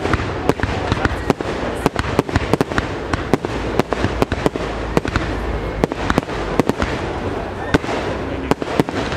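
Fireworks display: aerial shells bursting in quick succession, about three sharp bangs a second over a steady crackling hiss from glittering bursts.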